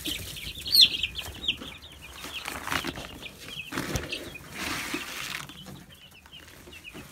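Young chicks peeping continuously, many short high chirps a second. A feed bag is rustled as it is handled a few seconds in.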